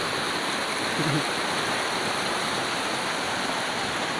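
Swollen, muddy floodwater of a river rushing over boulders: a steady, unbroken sound of fast-flowing water.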